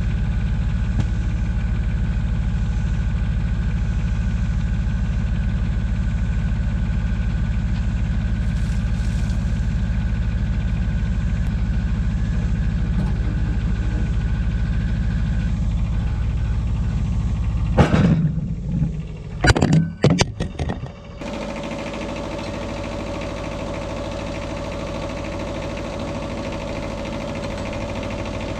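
Wood-Mizer portable band sawmill's engine running steadily with a deep rumble, broken about two-thirds of the way through by a burst of loud clattering knocks, after which a quieter, steadier machine sound with a humming tone carries on.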